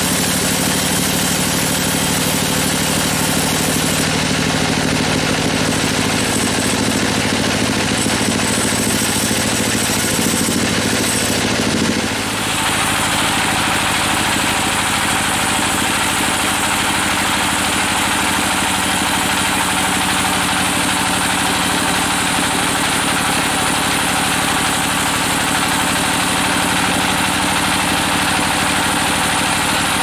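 Band sawmill running, its blade cutting lengthwise through a waterlogged log just pulled from a river. About twelve seconds in the sound shifts: the low steady hum fades and a harsher, hissier cutting noise takes over.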